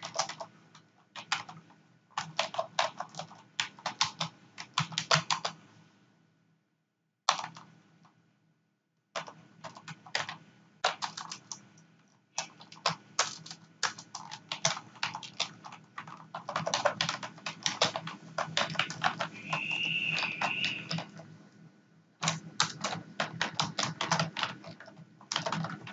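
Computer keyboard typing in quick runs of keystrokes, broken by short pauses, including a silent gap of a few seconds about a quarter of the way in. A short, wavering high-pitched tone sounds for about a second a little past three-quarters of the way through.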